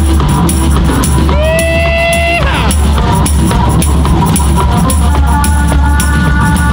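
Live rock band playing loudly with a drum kit keeping a steady beat and a tambourine shaken close by. About a second in, a held note rings and then bends down; near the end a sustained chord comes in.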